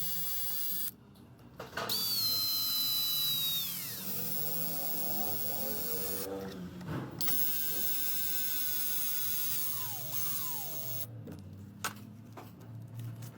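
Small high-speed electric motor whining steadily, then winding down with falling pitch, twice, with abrupt short breaks between runs.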